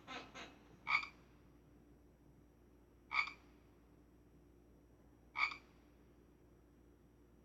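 A frog croaking: a couple of quick croaks at the start, then three single loud croaks about two seconds apart.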